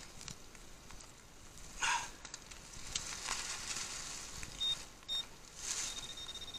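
Metal detector pinpointing a buried target: two short high beeps just before five seconds in, then a steady high tone that holds as the target is centred. Two short scraping bursts of digging in rocky ground, about two and six seconds in, over a steady hiss of rain.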